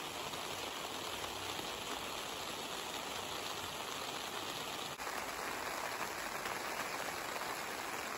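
Steady rain falling, an even hiss, with a slight change in its texture about five seconds in.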